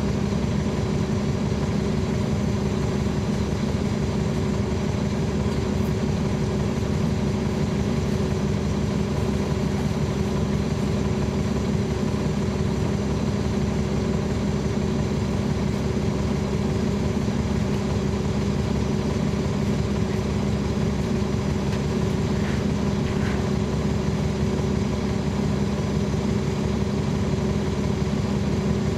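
Caterpillar C13 ACERT inline-six diesel engine of a NABI 40-foot transit bus running steadily at an unchanging pitch, heard from the rear seats inside the bus, close to the rear-mounted engine.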